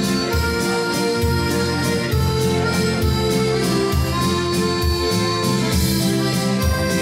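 Live dance music with an accordion-like melody played on an electronic keyboard, over a steady beat and a bass line.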